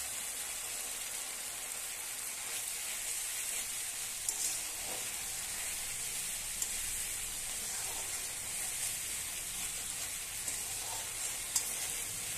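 Spice masala frying in oil in a metal kadai, sizzling steadily while a metal spatula stirs it. A few sharp clicks ring out, about four, seven and eleven seconds in. The masala is being fried down until the oil separates.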